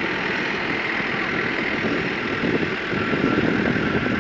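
Backhoe's diesel engine running steadily at a low, even pace.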